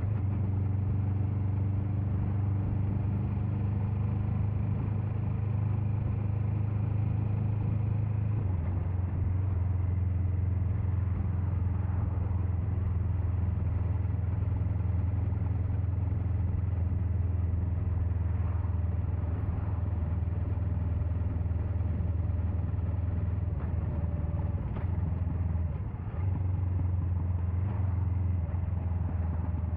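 Suzuki GS500F's air-cooled parallel-twin engine running steadily at road speed, heard with wind noise from a helmet chin-mounted camera. Its note steps down slightly about eight seconds in and dips briefly near the end.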